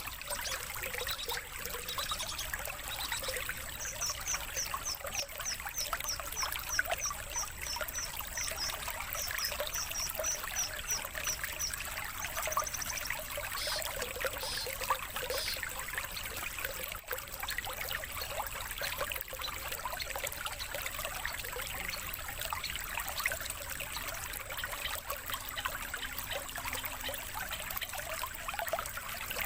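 Steady trickling, splashing water. From about four to twelve seconds in, a songbird repeats a short high note about four times a second, ending in a quick trill.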